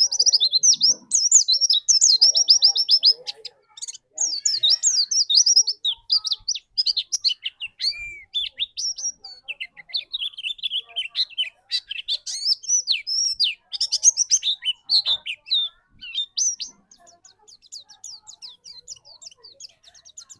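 White-eye (pleci) singing: rapid, high-pitched twittering phrases one after another with short breaks, turning softer and faster near the end.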